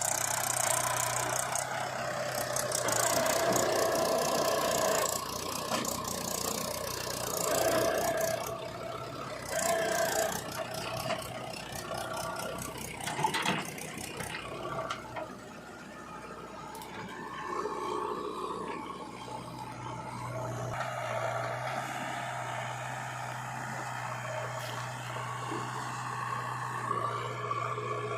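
Diesel engine of a JCB 3DX backhoe loader running while it digs and loads, rising and falling in loudness, with rattling and a sharp clank about halfway through.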